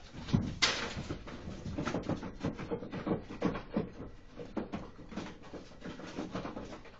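Animal cries: an irregular run of short, sharp calls, the loudest about half a second in.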